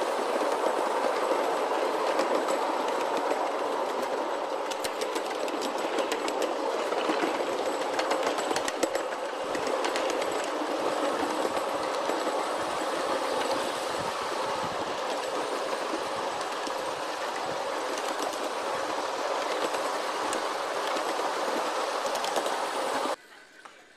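Ride-on scale GE23 locomotive and riding car rolling along a miniature railway, a steady rolling rumble of wheels on rail with scattered clicks as the wheels pass rail joints. The sound cuts off abruptly near the end.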